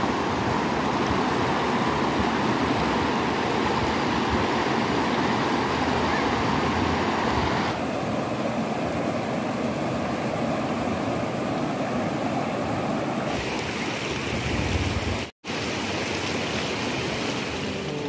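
River water rushing over rocks in shallow rapids, a steady rushing noise. It shifts in tone twice and drops out for a split second a little before the end.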